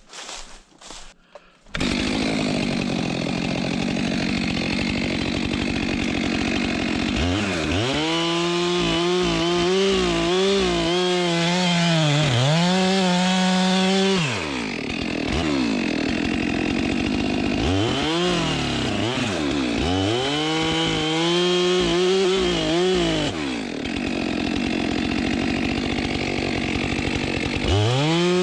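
Two-stroke chainsaw coming in suddenly about two seconds in and cutting through a log. Its engine pitch dips and recovers again and again as the chain loads in the wood.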